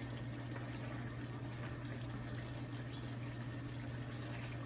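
Pan of chicken roast in a thick sauce simmering on the stove, a steady hiss over a constant low hum.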